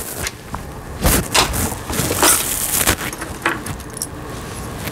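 Small metal sewing-machine parts, the bobbin case and bobbin, being handled at the needle plate: irregular small clicks and light jangling metal rattles.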